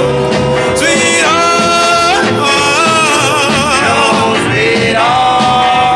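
Doo-wop song: a male vocal group singing in harmony over a band, the lead drawing out the word "sweetheart" in long, wavering held notes.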